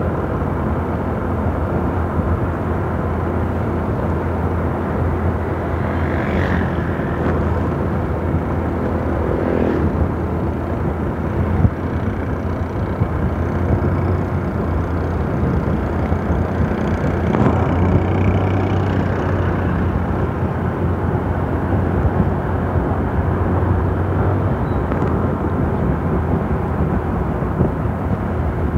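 Steady wind rush and road noise from riding along a paved road, over a low engine drone.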